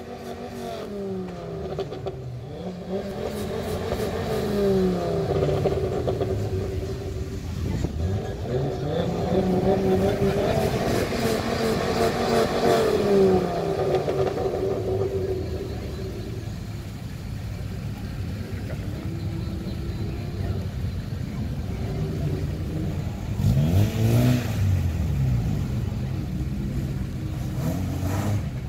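Car engines accelerating away one after another, each rising in pitch and dropping back through the gears. A louder one revs hard near the end.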